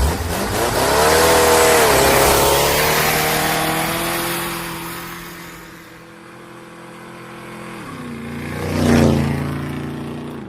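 A vehicle engine runs loud, starting suddenly. Its pitch wavers about a second in, then holds steady as it fades. Near the end the pitch drops and the sound swells to a brief peak about nine seconds in, like a close pass.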